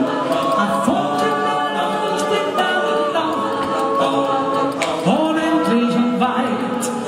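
Swiss yodel choir of men's and women's voices singing a cappella in close harmony, a wordless yodel passage of long held chords. The low voices slide up to a new note about five seconds in.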